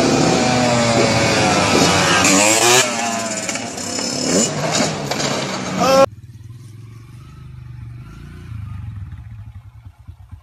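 Dirt bike engine revving hard, its pitch rising and falling, cut off suddenly about six seconds in; after that only a much quieter low hum.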